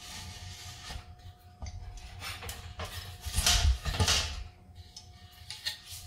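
Aluminium pressure canner lid being twisted open and lifted off the pot: metal rubbing and scraping against the rim, with a few clunks, loudest past the middle.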